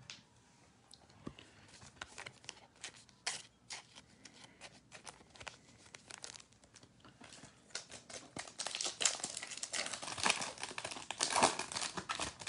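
Foil wrapper of a 2020 Topps WWE Chrome trading-card pack crinkling and tearing as hands open it. The crackles are faint and scattered at first, then get louder and denser over the last four seconds.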